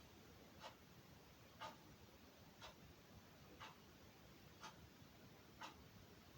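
Faint regular ticking, one tick a second, over near silence.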